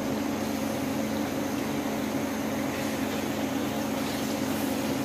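Raw chicken pieces sizzling gently as they go into hot oil in a non-stick wok, over a steady low hum.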